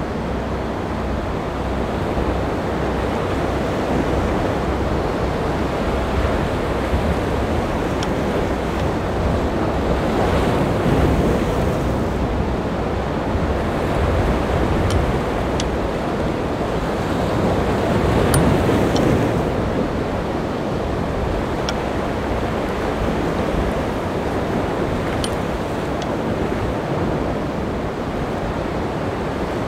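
Wind buffeting the microphone over the steady rush of waves and surf, swelling a little twice along the way.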